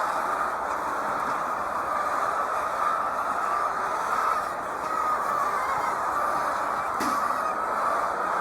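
A large flock of chickens clucking and calling all at once, a steady dense din.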